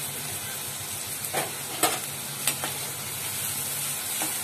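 Chopped onion sizzling in hot oil in a non-stick kadai, a steady hiss, while a metal spatula stirs it and clacks against the pan a few times.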